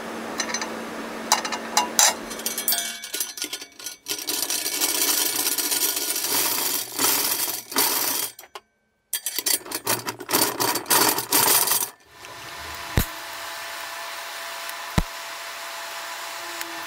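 Steel rods and parts clinking, scraping and being handled during fabrication. Then a TIG welding arc hisses steadily with a faint hum, and two sharp clicks come near the end.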